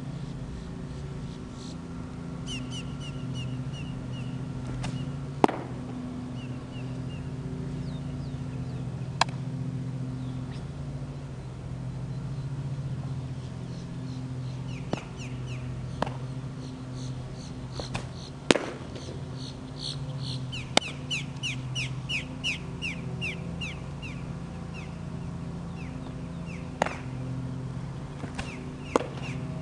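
Small birds chirping in quick runs of short notes, busiest past the middle, over a steady low hum, with sharp isolated pops scattered through.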